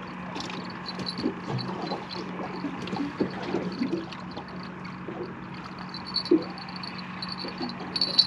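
Water lapping and slapping against the hull of a small fishing boat in choppy water, a soft irregular patter, over a steady low hum.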